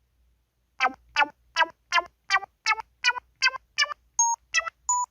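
MS500 mobile phone keypad tones: a run of twelve short pitched beeps about three a second, the first nine stepping upward in pitch like a scale, then three different notes to close, fitting one tone per key across a twelve-key pad.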